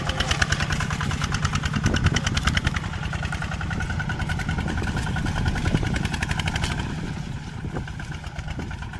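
Farm tractor's diesel engine running steadily under load while pulling a three-disc plough through soil, with a fast, even firing beat.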